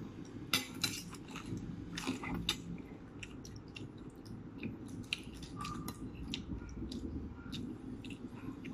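People eating: chewing and wet mouth sounds with many short clicks of metal spoons and a fork against teeth and dishes, the sharpest about half a second and about two seconds in.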